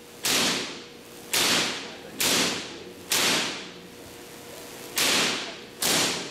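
Giant Van de Graaff generator firing artificial lightning onto a metal cage. There are six sharp cracks about a second apart, with a longer pause in the middle, and each one rings on in the hall's echo.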